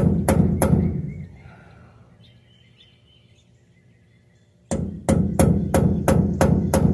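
A hammer striking a center punch to mark a differential bearing cap and the axle housing. There is a quick run of ringing metal-on-metal taps, about three a second: a few at the start, then a pause, then several more near the end.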